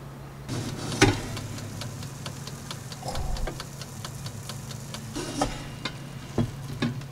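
Air fryer basket drawn out with a sharp clack about a second in. A run of quick, even ticks follows, typical of the fryer's mechanical timer dial, and a few more clacks of the basket and handle come near the end, over a steady low hum.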